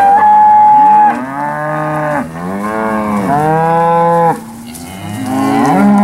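Cattle mooing: several long, loud calls one after another, with a short lull about three-quarters of the way through before another begins.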